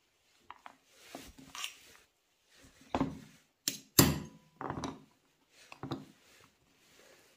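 Hammer tapping a steel pin punch against the end cap of a perforated steel muffler core: several sharp metal knocks, the loudest about four seconds in, with lighter clicks of small metal parts being handled.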